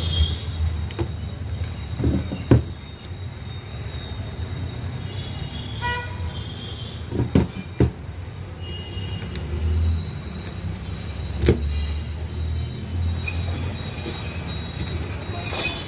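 A few sharp knocks or clacks, one near the start, a quick cluster in the middle and one more later, over a steady low hum that swells now and then. Faint short high tones sound in the background.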